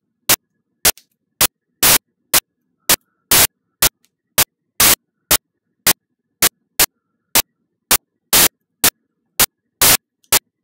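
Loud bursts of static hiss about twice a second, each cutting off to dead silence: a digital audio glitch in the recording rather than any sound in the room.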